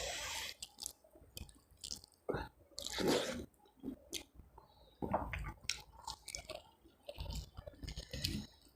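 Close-up chewing of a mouthful of mutton curry with rice, with irregular wet smacks and squelches and a short hiss at the start.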